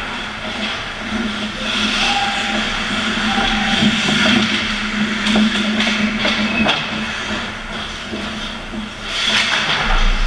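Ice hockey play heard from the net: skates scraping and hissing on the ice over a steady low hum, with sticks and puck clacking in a scramble at the goal between about four and seven seconds in.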